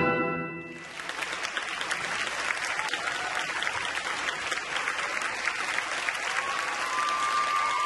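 Audience applauding steadily after the last chord of the music dies away in the first second.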